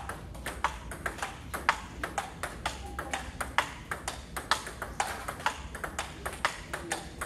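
Table-tennis rally: the celluloid-type ping-pong ball clicks off the paddles and bounces on the table in a steady rhythm, about two sharp ticks a second.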